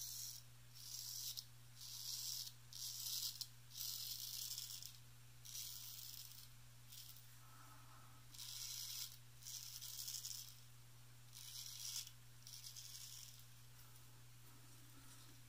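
Wade & Butcher 7/8 Celebrated full-hollow-ground straight razor cutting lathered stubble on the neck and chin: about a dozen short scraping strokes, one after another, stopping near the end. This is the first pass of the shave.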